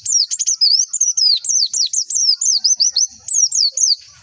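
White-eye (pleci) singing: a fast, unbroken run of high, sharply falling whistled notes, about five a second, stopping about four seconds in.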